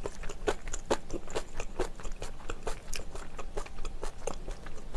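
A person chewing a mouthful of food close to a sensitive microphone, mouth closed: soft wet clicks and smacks, about three a second, irregular.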